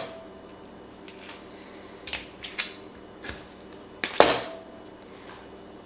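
Kitchen knife cutting a peach on a plastic cutting board: a few scattered knocks of the blade against the board, the loudest about four seconds in, followed by a brief ring.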